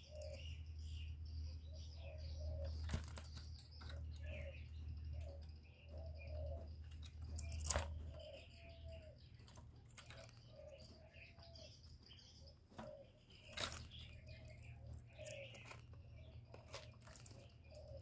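Caged spotted dove moving and flapping its wings, giving faint sharp rustles several times, the loudest about eight seconds in. Under the flaps, soft low coos repeat about once a second.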